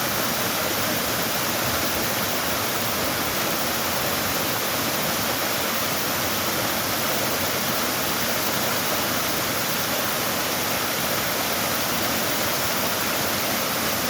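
Mountain stream rushing steadily over rocks, an even, continuous water noise.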